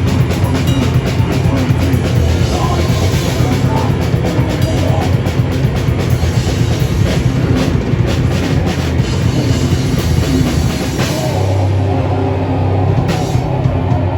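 Rock band playing loud and live, with fast, dense drumming and cymbals over guitars; about eleven seconds in the drumming thins out and the guitars hold a sustained chord.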